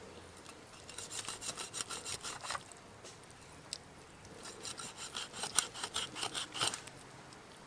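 A large knife sawing back and forth through the meat at the base of a raw pig ear, in two runs of quick strokes of about seven a second.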